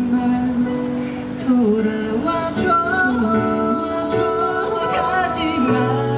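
A male vocalist singing a slow ballad live through a handheld microphone over instrumental accompaniment, holding long notes, with one wavering with vibrato about five seconds in.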